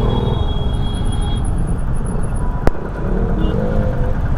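Motorcycle riding along a highway: a steady mix of engine and wind noise, with one sharp click about two and a half seconds in.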